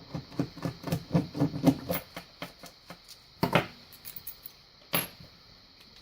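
Small metal clicks and taps from handling a steel padlock and its keys, quick and irregular for about two seconds, then two louder knocks a second and a half apart.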